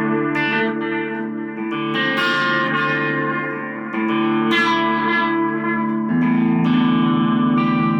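Music: a guitar played through effects, sustained notes and chords with new notes struck about once a second, the low notes shifting to a new chord about six seconds in.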